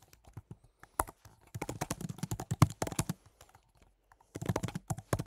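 Typing on a computer keyboard: fast runs of key clicks, a pause of about a second just past the middle, then typing again.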